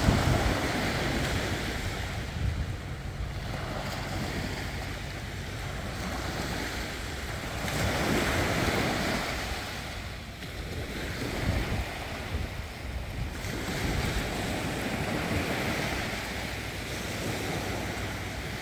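Small surf breaking and washing up a sandy beach, swelling and fading every few seconds, with wind buffeting the microphone.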